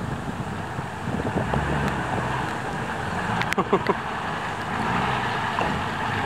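Nissan GQ Patrol ute's engine running steadily at low revs as it crawls through water-filled mud ruts on large mud tyres, with rain noise over it.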